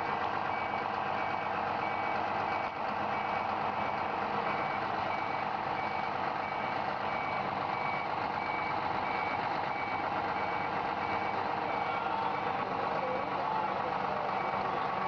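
Warning beeper of a Scania fire truck beeping steadily, about three beeps every two seconds, over the steady running of the truck's diesel engine.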